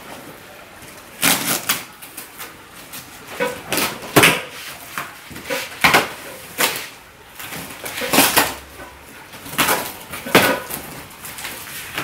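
Cardboard box being opened by hand: flaps and packing pulled and folded back in an uneven string of crackles and scrapes.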